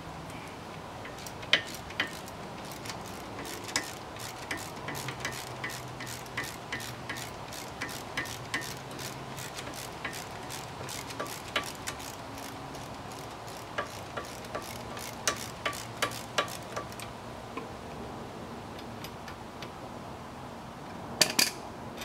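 Hand socket ratchet clicking in runs of quick ticks as a 13 mm bolt on the front wheel hub assembly is turned out, then a short metallic clatter near the end.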